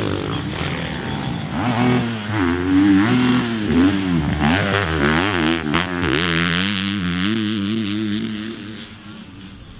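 450-class motocross bike engines revving hard and backing off over and over, their pitch swinging up and down as the riders work the throttle through jumps and turns. The engine sound drops away near the end.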